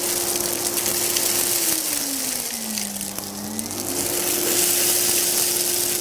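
Philips Performer Ultimate bagged canister vacuum cleaner running as its floor nozzle sucks spilled grain off a rug: a steady motor whine over rushing air. The whine dips in pitch about two seconds in and rises back by about four seconds.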